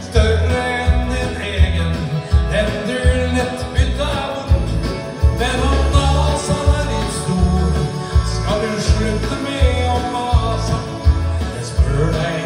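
A man singing a country-style song into a handheld microphone over a backing track with a steady, heavy bass beat, heard through a PA.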